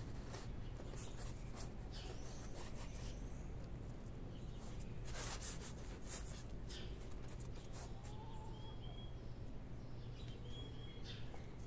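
Hands scratching and rustling in loose potting soil, pressing chive seedlings into a planter, in irregular spells. Short high bird chirps come in twice near the end, over a steady low hum.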